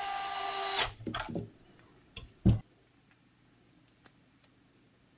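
Brushed DC motor of a DeWalt 8V gyroscopic screwdriver, opened up with its housing half off, running with a steady whine that cuts off less than a second in. Then a few plastic clicks and one knock about two and a half seconds in as the opened tool is handled.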